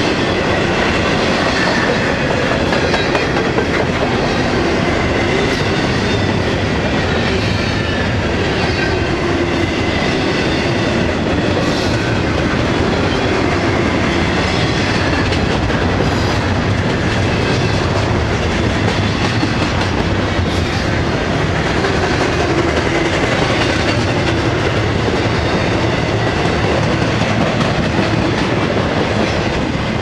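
Long intermodal freight train of double-stack container cars and trailer flatcars rolling past at speed: steady rumble of steel wheels on the rails with the clickety-clack of wheels over rail joints.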